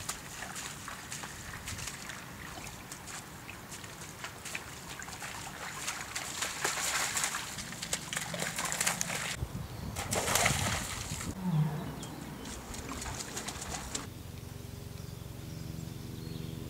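White lion cubs splashing and sloshing as they wade through shallow flood water, with repeated splatters that are loudest about ten seconds in. The splashing dies down about fourteen seconds in and music comes in near the end.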